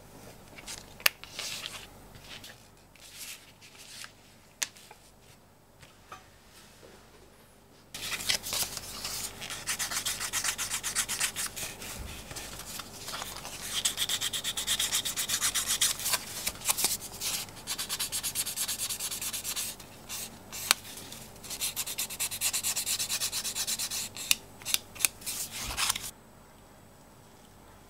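Hand-sanding a strip of English bridle leather with a small piece of sandpaper: fast back-and-forth scratchy strokes that start suddenly about 8 seconds in and stop near the end. Before that there are only a few light clicks from handling the leather and tools.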